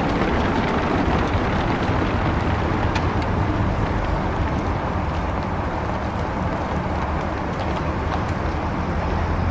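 City street ambience meant to evoke a 1930s city: a steady mix of traffic noise with a low engine hum and a few faint scattered ticks.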